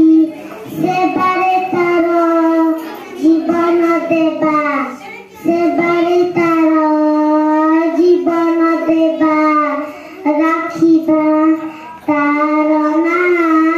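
A young girl singing a patriotic song solo into a microphone, in phrases of long held notes with short breaths between them.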